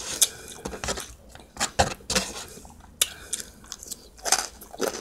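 Eating sounds up close: a plastic fork clicking and scraping in a takeout container, with chewing between the clicks.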